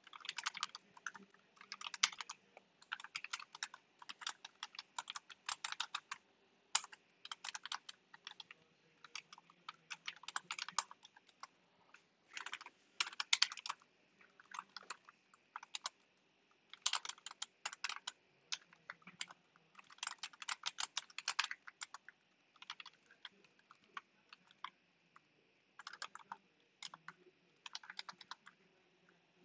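Typing on a computer keyboard: quick bursts of keystrokes separated by short pauses.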